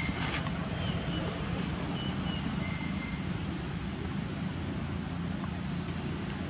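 Steady low outdoor rumble, with a few faint short high-pitched chirps and a brief high hiss about two and a half seconds in.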